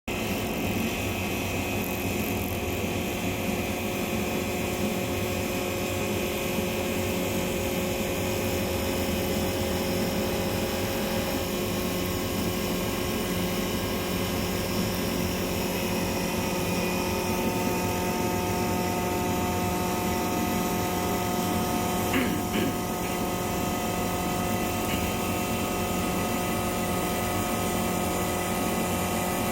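CNC wood lathe running steadily as it turns a solid-wood vase: a constant motor and spindle hum with several steady whining tones over the noise of the cut, and a brief sharp knock about three-quarters of the way in.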